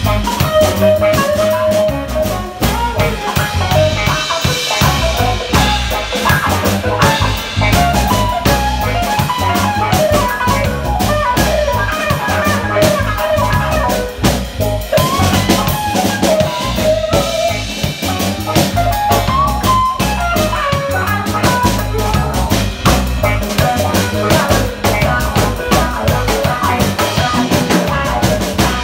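Live instrumental band playing: drum kit with snare and rimshots, electric bass, hollow-body electric guitar and keyboard.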